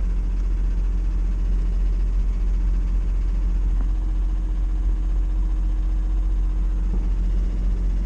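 Mitsubishi VR-4's engine idling steadily.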